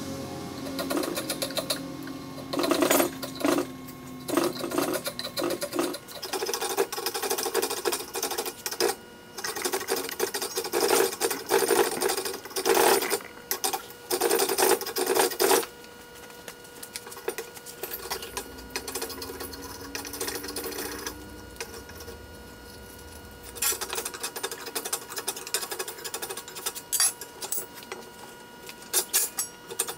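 Edged hand tool shaving a wooden axe handle blank held in a vise: bursts of quick, uneven scraping strokes, with a quieter spell in the middle before the strokes pick up again.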